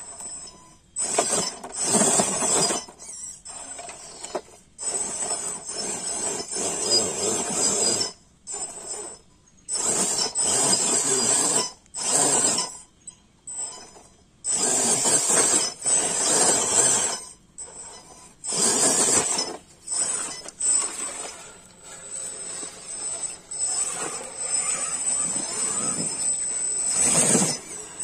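Radio-controlled rock crawler's electric motor and gearbox whirring in repeated short bursts of throttle as it climbs over rock ledges, with its tyres scraping on the stone.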